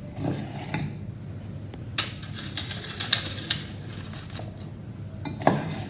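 A tablespoon scraping and tapping against a container while sticky chocolate-coated rice bubbles are scooped out and dropped into patty cake papers. The clicks and scrapes come irregularly, the sharpest about two seconds in and again near the end.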